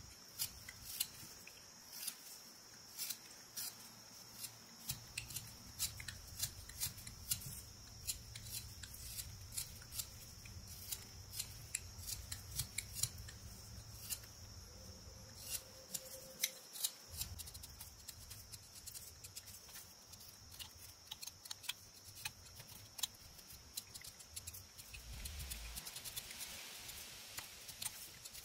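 Whittling knife carving Eastern white pine: an irregular run of sharp, crisp snicks, a few each second, as the blade slices off chips.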